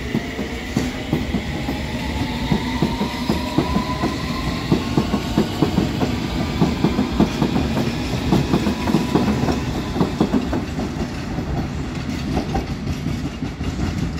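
London Underground S Stock train accelerating away over the rails and points, its traction motors giving a rising whine in the first few seconds. A dense run of wheel clicks and clatter over the joints and crossings follows, thinning out near the end as the train draws off.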